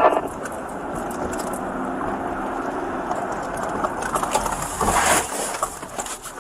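Backhoe's diesel engine running steadily, with a louder rush of noise about five seconds in.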